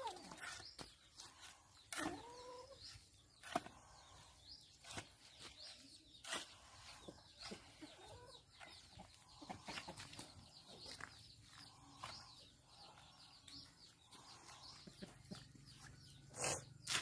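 Hoe chopping and scraping through a heap of wet sand-and-cement mortar in irregular strokes, with chickens clucking in the background.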